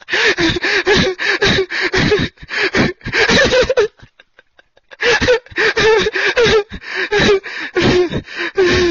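A young man laughing uncontrollably in rapid, high-pitched gasping bursts, several a second. He breaks off for about a second midway, then starts again.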